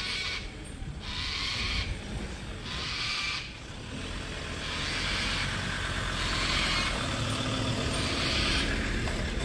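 A 4WD ute's engine running at low speed as it tows a caravan along a dirt track, growing louder as it draws closer. A high buzzing pulse repeats about every second and a half throughout.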